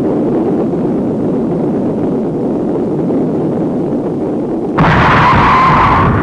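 Showa-era tokusatsu explosion sound effect: a steady low rumble, then a sudden loud blast about five seconds in that carries on with a ringing tone.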